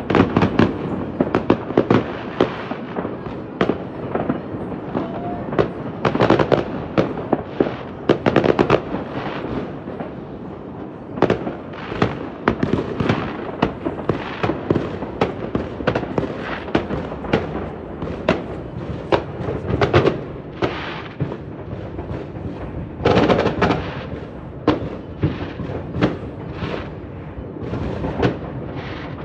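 A New Year's fireworks display heard from afar: a continuous barrage of bangs and crackling bursts, many overlapping, with a dense flurry of rapid pops about 23 seconds in.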